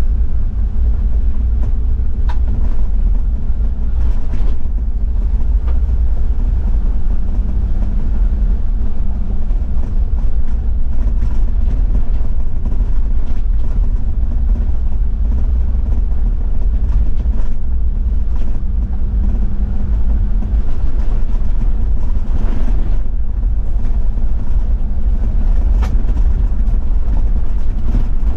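Toyota Land Cruiser 70-series diesel running along an unpaved forest road: a steady low engine and tyre drone, with a few sharp ticks.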